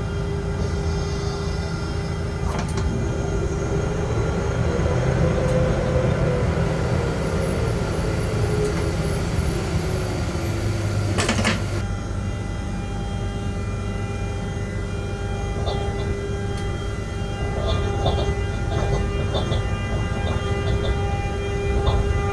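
Running noise inside a freight locomotive's cab as it moves slowly: a steady low rumble with a hum of several fixed tones, and a tone that rises and falls between about four and ten seconds in. A sharp click comes just past the middle, and light ticks and rattles follow in the second half.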